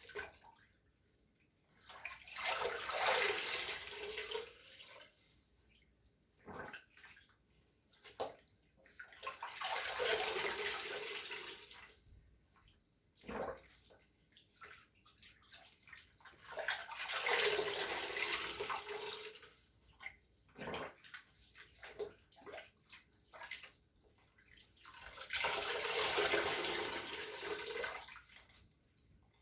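Water pouring and splashing in four long surges about every seven seconds, with small wet clicks and squishes in between.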